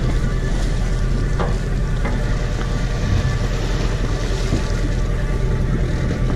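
Party boat's engine running with a steady low hum, mixed with wind and water noise against the hull.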